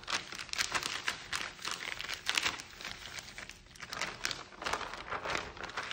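Thin clear plastic sheet crinkling and rustling as hands smooth and shift it, in quick irregular crackles with a brief lull a little past halfway.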